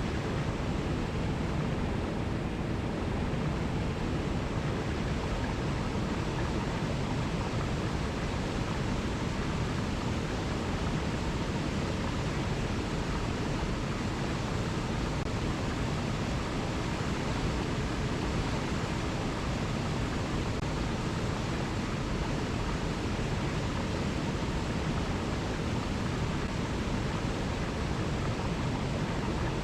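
Mountain river rushing steadily over rocky cascades, a continuous even rush of water strongest in the low range.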